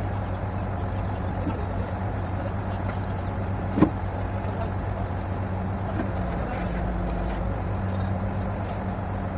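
Borewell drilling rig's engine running steadily with a constant low hum, and one sharp knock a little before halfway.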